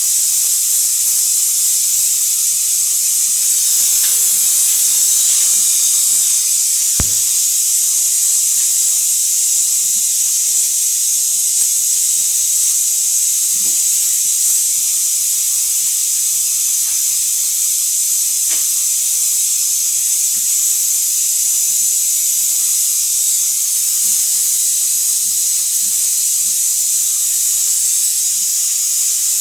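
A steady, loud hiss of gas that runs on unbroken, with a single sharp click about seven seconds in.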